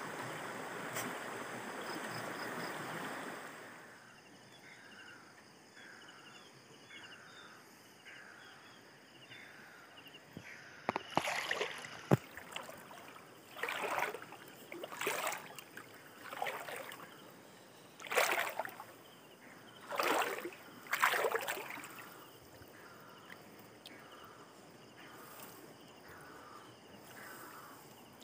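Shallow river water rushing over stones, then quieter, followed by a series of about seven loud splashes and sloshes in the shallow water as the umbrella net trap is reached and handled.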